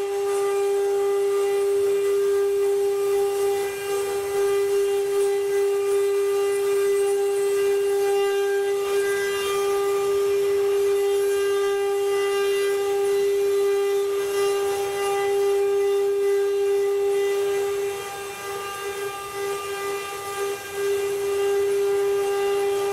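CNC wood-carving router's spindle motor running at speed, a steady high whine that wavers and dips for a few seconds near the end.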